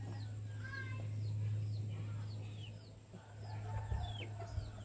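Chickens clucking, with short, high, falling chirps repeating all through, over a steady low hum.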